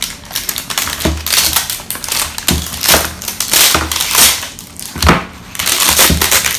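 Clear plastic wrap crinkling and crackling in quick irregular rustles as it is pulled off a plastic toy egg carton, with cardboard packaging tearing and a few dull knocks as the carton is handled.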